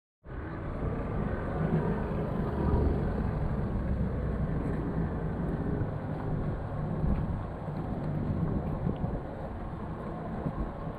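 Steady low rumble of a harbour, with small boats' outboard motors running on the water close by.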